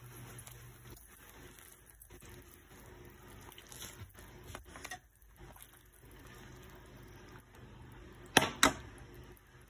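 Quail broth simmering in a pot, with liquid sloshing as a metal spoon is moved through it. Near the end, two sharp knocks of the spoon against the pot.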